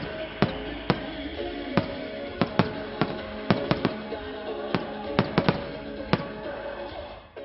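Aerial fireworks shells bursting in quick, irregular succession, about fifteen sharp bangs, over music with long held notes.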